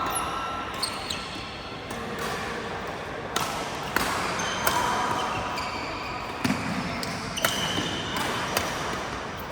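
Badminton doubles rally: sharp racket-on-shuttlecock hits at irregular intervals of about a second, mixed with short high squeaks of court shoes on the floor.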